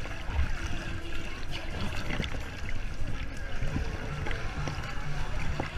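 Water sloshing and lapping close by as a dog swims, with small scattered splashes and a low rumble of moving water against the microphone.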